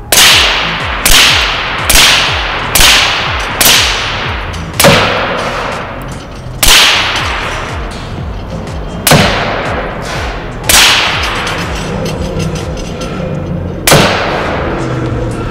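A .25-calibre LCS PCP air rifle firing ten shots in a timed string, each a sharp crack with a short tail. The first five come about a second apart, then the shots slow to one every two to three seconds.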